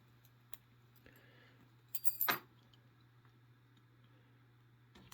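A brief metallic clink and jangle about two seconds in as steel lock picks and a tension wrench are handled and set into a brass padlock, with a small click earlier; a low steady hum runs underneath.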